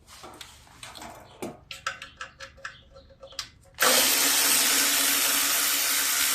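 Light metallic clicks of a socket and extension being fitted to a bolt. Then, almost four seconds in, a power tool starts abruptly and runs loud and steady for about three seconds, spinning out a 10mm shroud bolt.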